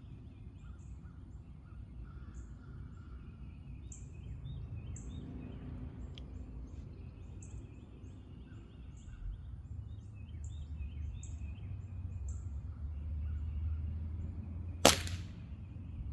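A single sharp shot from a .177 air pistol about fifteen seconds in, with small birds chirping in the background before it.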